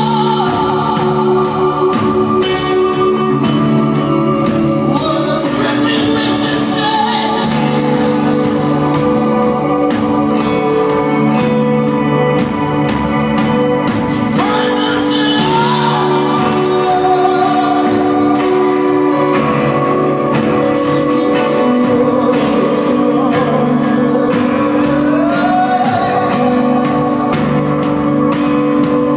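Live band music: a man singing, with pitch glides, over held keyboard chords and electric guitar, amplified in a concert hall.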